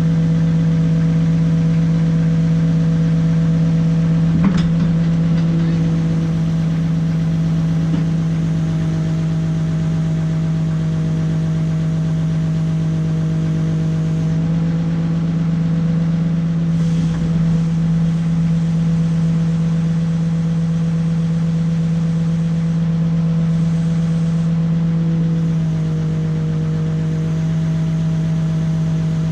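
Backhoe diesel engine running steadily as its boom carries a suspended air-conditioning unit. The engine note shifts slightly a couple of times as the load is moved, and there is a single knock about four seconds in.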